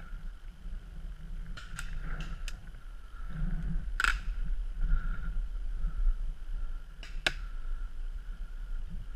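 Paintball markers firing: scattered sharp pops at uneven intervals, the loudest about four seconds in and two in quick succession near the seven-second mark, over a low rumble of wind and handling on the helmet camera's microphone.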